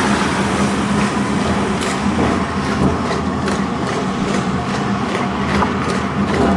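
Horse-drawn tram running along its street rails: a steady rumble from the steel wheels on the track, with faint clicks now and then.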